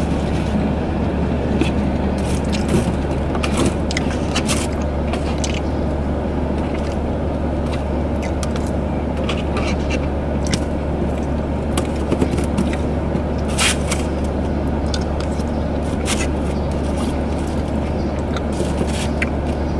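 A steady low hum inside a parked car, with scattered small clicks and scrapes from eating pizza.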